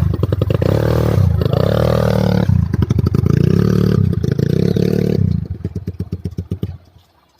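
Four-wheel ATV engine running loudly, its throttle dipping a couple of times, then fading away over the last two seconds.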